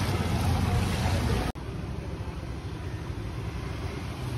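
Street traffic ambience: a steady low rumble of motor vehicles. About a second and a half in it cuts abruptly to a quieter, similar street hum.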